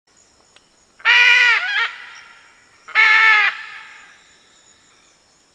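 Red macaw giving two loud, harsh squawks about two seconds apart, each trailing off in an echo.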